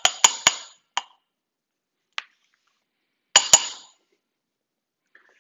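Metal spoon clinking against ceramic dishware while spooning out dulce de leche: a quick run of clinks at the start, single clinks about one and two seconds in, and a sharp double clink at about three and a half seconds.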